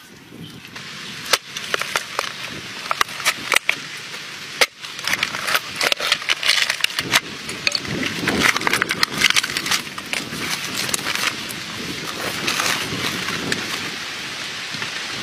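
Green coconut husk being pried and torn apart by hand: a run of sharp cracks and snaps, then denser crackling of fibres tearing over a steady hiss in the second half.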